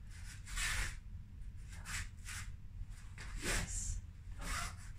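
Taekwondo uniform swishing and feet shuffling on the floor as a movement is practised: a handful of short swishes, the strongest about half a second in and about three and a half seconds in.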